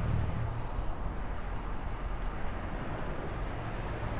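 Steady traffic and road noise heard from a bicycle moving through city traffic: a low, even rumble with a hiss over it.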